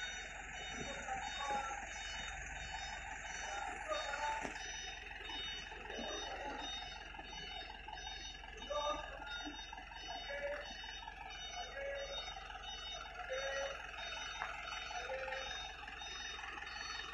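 Fire truck standing with its engine running, a steady low hum, with a faint high ticking that repeats evenly from about four seconds in and scattered faint voices.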